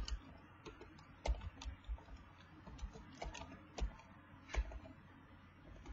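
Computer keyboard typing: irregular keystrokes, a few a second, fairly faint.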